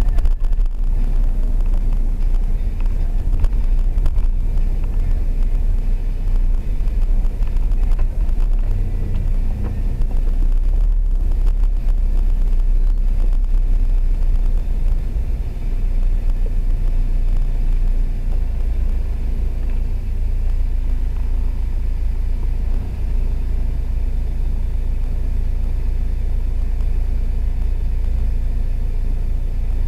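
Car's engine and road noise heard from inside the cabin while driving slowly: a steady low rumble that becomes evener about 18 seconds in.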